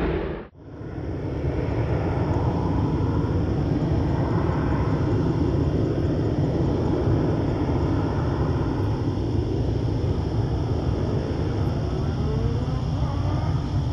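Steady, distant rumble of a Boeing 727-200's three Pratt & Whitney JT8D low-bypass turbofan engines as the jet climbs out after takeoff. The sound cuts out briefly about half a second in, then returns.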